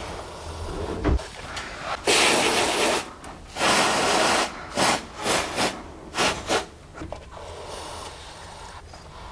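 Pipe-freezing aerosol spray hissing as it is injected through a thin tube into a freezing jacket on a heating pipe to form an ice plug. It comes as two blasts of about a second each, then a quick string of short spurts.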